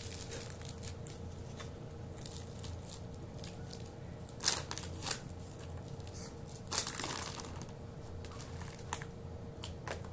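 Plastic shopping bags rustling and crinkling as groceries are handled, in scattered crackles with louder rustles about four and a half seconds in and again around seven seconds.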